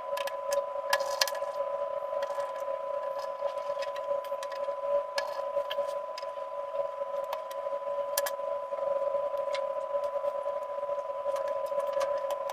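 Irregular small clicks and taps of a smartphone being reassembled, parts and screws being handled, over a steady hum.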